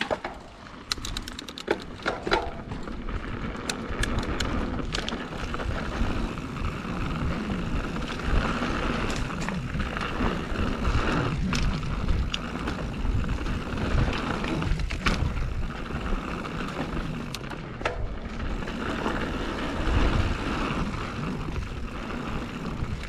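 Mountain bike riding a dirt singletrack: tyres rolling over the dirt with the steady rumble of the ride and rattles and clicks from the bike over rough ground, most of them in the first few seconds.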